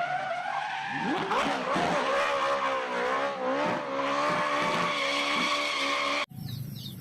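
Racing-car engine and tyre-squeal sound. A wavering, gliding engine note runs with screeching tyres and cuts off suddenly near the end.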